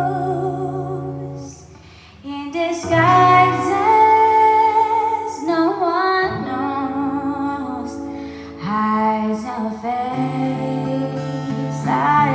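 Live acoustic performance: a woman's voice sings long, bending notes without words over strummed acoustic guitar, with a brief drop in level about two seconds in.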